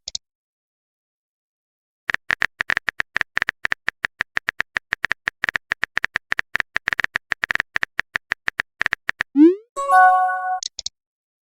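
A quick run of short, even clicks, about seven a second, for some seven seconds. Then a fast rising swoop and a short bright chime, ending in a few high blips.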